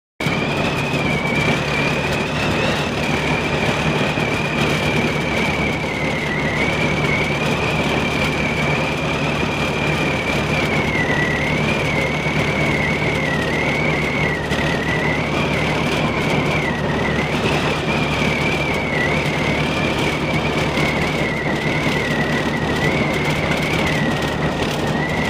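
Car running along a road, heard from inside the cabin: a steady engine hum under an even rush of noise, with a high whistle that wavers slowly in pitch.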